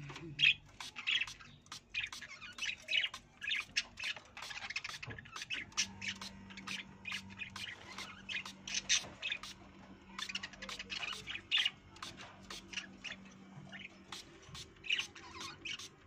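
Rose-ringed (Indian ringneck) parakeets squawking in a cage: a rapid, uneven string of short calls all through, with a faint low hum under them in the middle.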